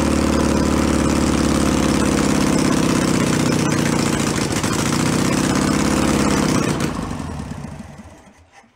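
Air-cooled VW Beetle flat-four engine running steadily on all four cylinders with its throttle held open by hand at the carburetor, then shutting off about seven seconds in and winding down to a stop.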